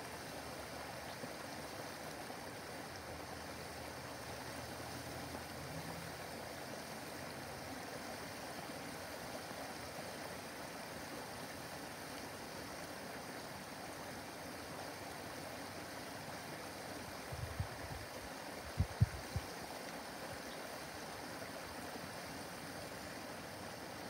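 Small backyard waterfall running steadily, water splashing down over rocks into a pond. About three-quarters of the way through, a short cluster of a few low thumps.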